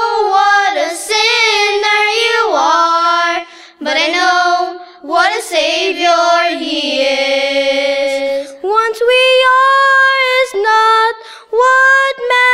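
A girl singing a gospel song solo with no accompaniment heard. She sings in phrases with long held and sliding notes, with short breaks for breath between them.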